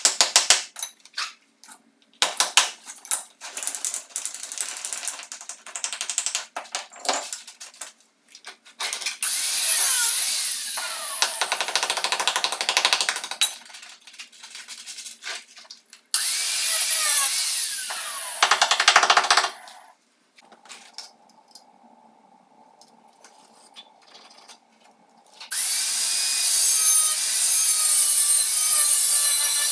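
Hammer striking a chisel to chip out tile and screed, a quick run of sharp blows over the first eight seconds. Then an angle grinder with a diamond disc cuts into the screed in a few passes, its pitch dropping under load, ending in a steady cut over the last few seconds.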